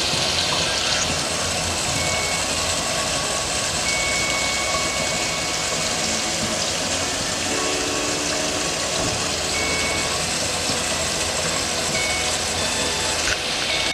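Steady dense rushing noise with a low rumble underneath. Short high beeps sound four times at uneven gaps, the second one held for about two seconds.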